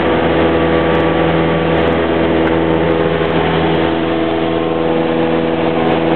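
Cessna 172's piston engine and propeller running steadily at a constant, low power setting, heard from inside the cabin.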